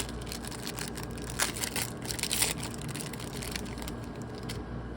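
A sealed trading-card pack wrapper crinkling and crackling as it is opened, with the loudest crackles about a second and a half in and again near the middle, stopping before the end.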